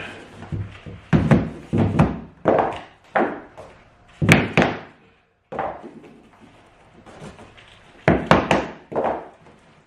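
Tapping block being knocked against the edge of a cork floating-floor plank to close the click-lock joint tight: a dozen or so dull knocks in three quick runs.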